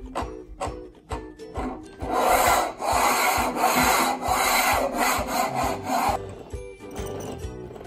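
Plastic toy car wheels rolling across a wooden tabletop as the car is pushed back and forth: a loud, rough, pulsing rolling noise that starts about two seconds in and cuts off about six seconds in. Quiet background music plays underneath.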